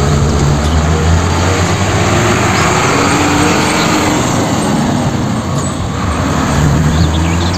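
Large truck engine running amid road traffic noise, with a steady low engine hum under a dense roar of traffic.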